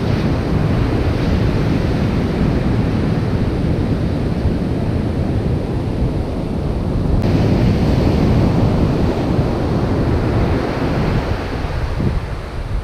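Wind buffeting the microphone over the wash of surf running up the beach.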